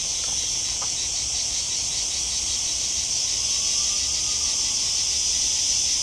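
Loud, steady chorus of countless singing insects in the pine trees, a high buzzing with a fast pulsing running through it.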